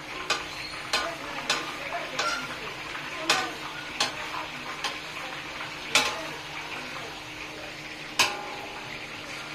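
Boondi deep-frying in hot oil in a kadai, a steady sizzle, while a perforated steel ladle (jhara) stirs and lifts them. The ladle clanks and scrapes against the pan at irregular moments, about once a second, with the sharpest knocks about six and eight seconds in.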